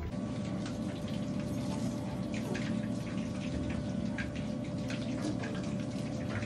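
Kitchen knife cutting along the back of a whole raw fish: a run of small, irregular ticks and crackles over a steady low hum.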